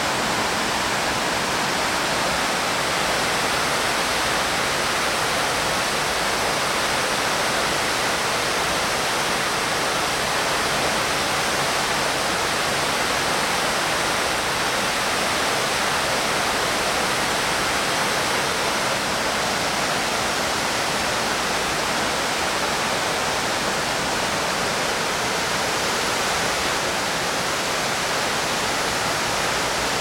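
Steady rush of the 9/11 Memorial's South Pool waterfall: water pouring in sheets down the pool's walls into the basin.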